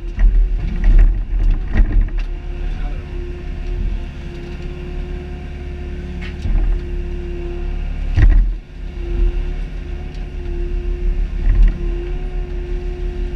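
Mini excavator's diesel engine and hydraulics running steadily under load, with a steady whine that wavers slightly in pitch as the boom and bucket work. Metal clunks from the bucket and arm come several times in the first two seconds, and a louder one about eight seconds in.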